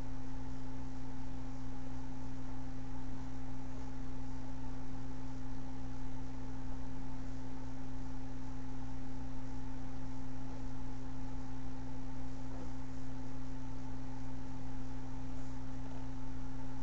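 A steady electrical hum: a constant mid-pitched tone over a lower drone, unchanging in pitch and level.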